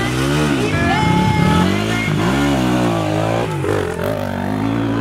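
Dirt bike engine at the start line being revved up and dropped back to idle a few times.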